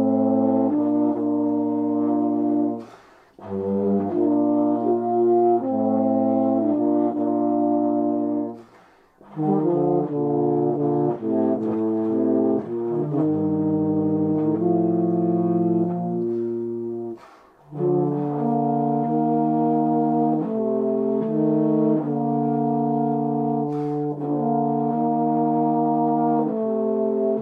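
A euphonium duet: two euphonium parts playing slow, held melodic phrases together in harmony, with short pauses between phrases about three, nine and seventeen seconds in.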